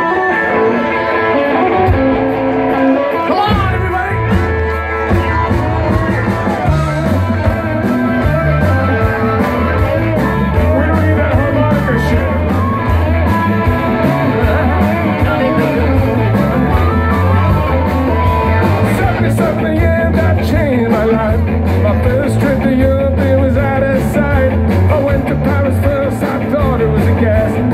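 Live rock band playing: electric guitars and saxophone over a steady beat.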